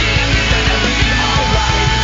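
Loud rock music with a steady drum beat and sustained melodic lines over it.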